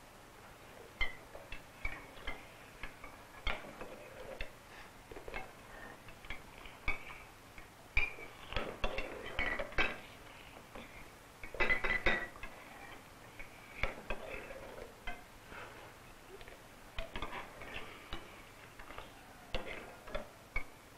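Cutlery and dishes clinking at a meal table: irregular sharp clicks of knives and forks on plates, some with a short high ring, with busier clatter about eight and twelve seconds in.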